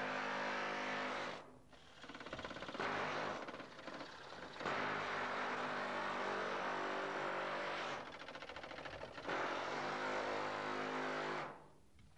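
Pneumatic air chisel cutting into a van's sheet-metal body, a loud steady rattling hammer that stops briefly a few times and starts again.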